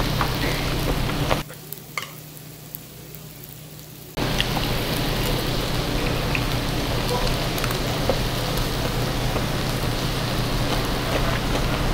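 Thin-sliced pork belly (daepae samgyeopsal) sizzling steadily on a cast-iron lid grill plate, with a few light clicks of chopsticks. The sizzle drops away sharply about a second and a half in and returns about four seconds in.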